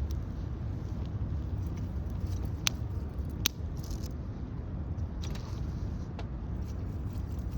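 Wood campfire crackling, with two sharp pops close together about three seconds in, over a steady low rumble.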